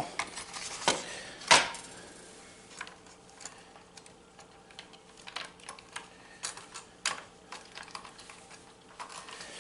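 Small metal hardware clinking and clicking as lock washers are handled: a sharp clink about one and a half seconds in, then scattered lighter clicks.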